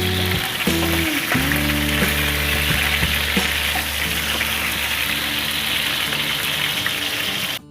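Chicken pieces sizzling and frying in a pan in their own rendered fat, a steady crackling hiss. The sound cuts out abruptly just before the end.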